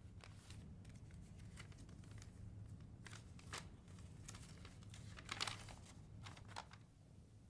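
Faint rustling and crinkling of paper being handled, with a few sharper clicks, the loudest about five and a half seconds in.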